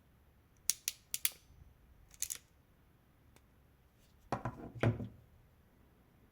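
Ratchet crimping pliers clicking as they are handled: a handful of sharp clicks in the first two and a half seconds, then a denser clatter of clicks around four and a half seconds in.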